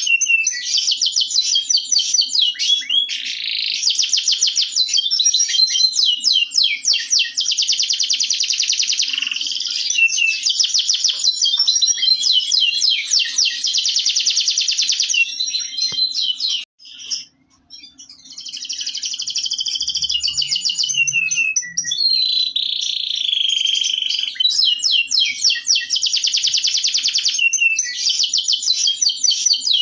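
Local canary singing a long, almost unbroken song of rapid trills and rolling phrases, high-pitched, with one short break a little past halfway before it resumes.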